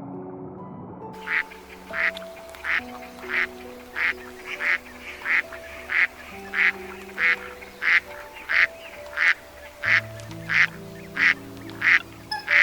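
An animal calling in short, even, repeated calls, about three every two seconds, starting about a second in, over soft background music.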